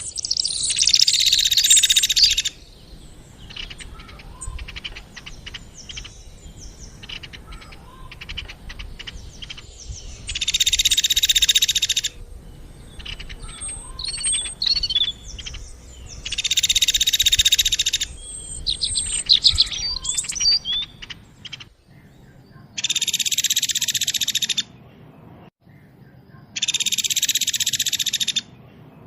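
Songbird singing a dense, rapid trill about two seconds long, repeated five times, with quick chirps and whistled notes between the trills.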